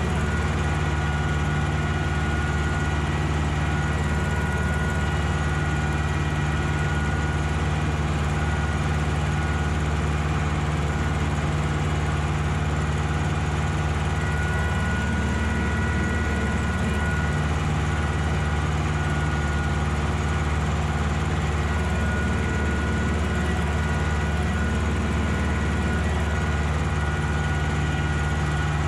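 Ursus tractor's diesel engine running steadily while pulling tillage gear across a field; its note shifts briefly twice, about halfway through and again later, as the load or revs change.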